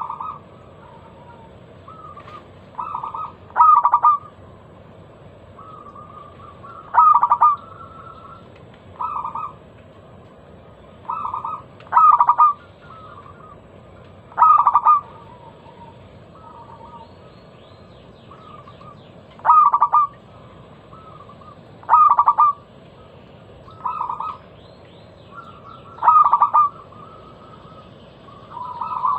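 Zebra dove (perkutut) cooing: short, loud phrases of quick ringing notes, repeated every two to three seconds.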